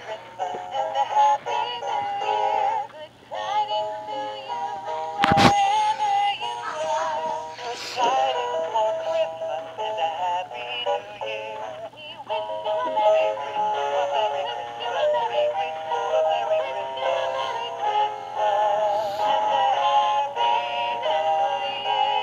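Hallmark animated plush snowmen singing a Christmas carol with musical backing from their built-in sound units, the voices wavering in pitch. A sharp click about five seconds in.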